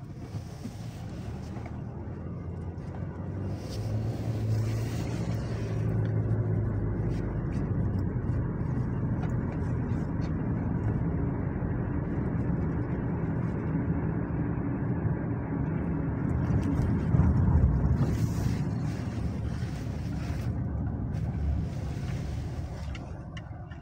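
Car engine and road noise heard from inside the cabin while driving, a steady low hum. It grows louder a few seconds in as the car picks up speed and eases off near the end as the car slows.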